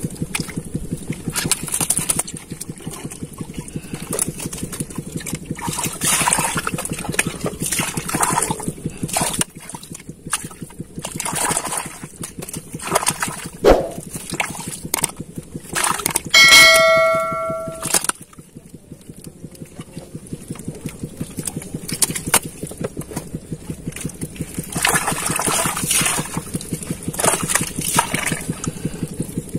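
Hands squelching and slapping through wet mud and shallow water, with many small wet clicks and splashes. About halfway through, a bell chimes once and rings for about a second and a half, louder than the mud sounds.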